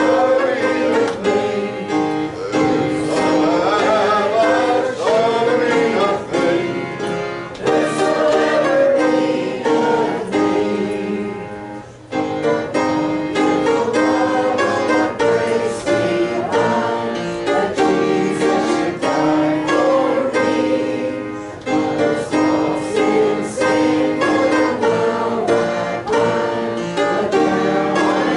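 Church congregation singing a hymn together with instrumental accompaniment, with a brief pause between lines about twelve seconds in.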